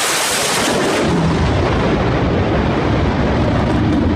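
F/A-18 Hornet fighter jet making a low pass: a loud jet roar with a hiss that peaks in the first second, then settles into a deep rumble as the jet moves away.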